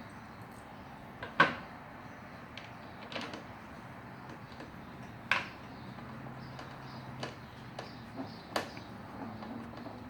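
Sharp clicks and knocks of small metal and plastic lawnmower parts, screws and a screwdriver being handled during reassembly. There are four louder clicks spread through the stretch, the first the loudest, with fainter taps between them.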